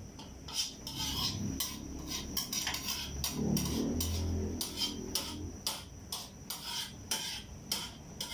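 Metal spatula scraping and clinking against a wok while food is stirred, in quick repeated strokes of about two to three a second.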